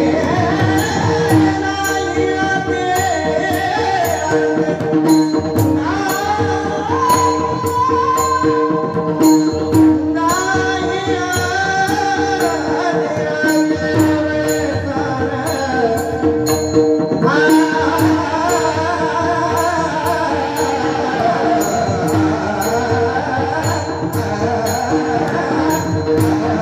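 Marathi Warkari kirtan chal: male voices singing a melodic devotional line over a steady drone, accompanied by pakhavaj drumming, with sharp metallic clicks keeping a regular beat.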